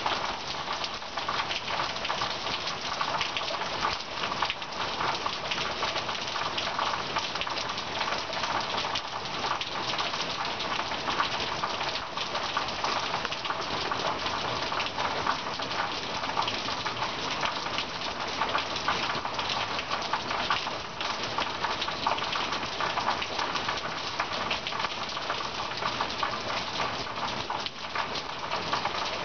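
Steady rain falling, a dense, even patter of many drops hitting surfaces, unchanging throughout.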